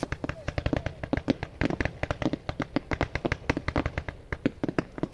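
Aerial fireworks bursting: a rapid, dense string of sharp cracks and bangs, many a second, thinning out near the end.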